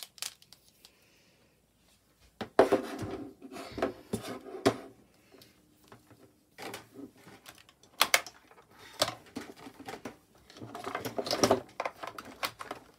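Craft tools and papers being handled and set down on a tabletop: quiet for about two seconds, then irregular bursts of sharp clicks, knocks and rustling.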